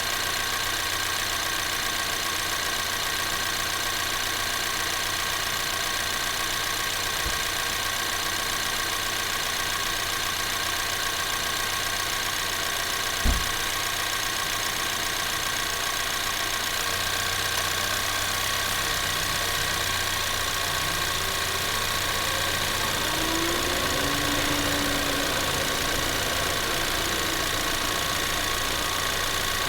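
Ford Maverick's 2.0L EcoBoost turbocharged four-cylinder engine idling steadily, warm, with the air conditioning switched on. A single sharp knock comes about 13 seconds in, and the low hum shifts slightly a few seconds later.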